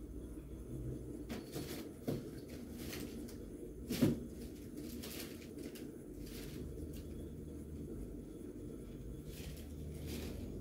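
Samsung WA15J6750S inverter top-load washing machine running with a steady low hum, its drum turning at low speed on newly fitted suspension shocks. There are a couple of light knocks, the louder one about four seconds in.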